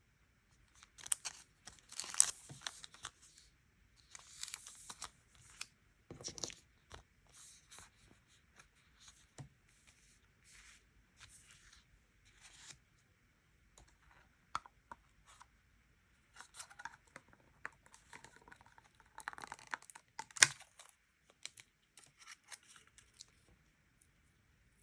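Paper and sticker sheets handled close up: irregular bursts of peeling, tearing and crinkling, with sharp crackles loudest about two seconds in and again near twenty seconds.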